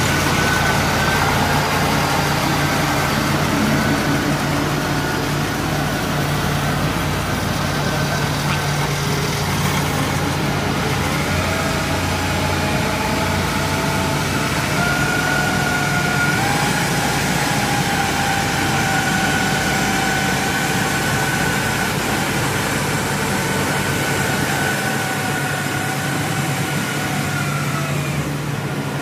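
Engine of a steel tracked crawler carrier running steadily as it travels with a Kubota combine harvester loaded on top, with a high whine that wavers a little in pitch.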